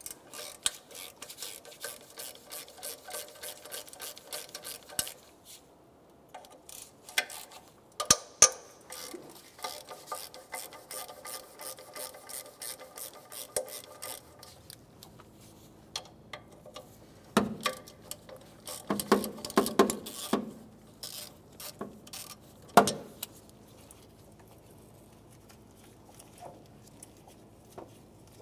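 Ratchet wrench with an 11 mm (7/16 in) socket clicking in runs of rapid clicks as it backs out the fuel-rail mounting bolts. A few louder knocks follow in the second half.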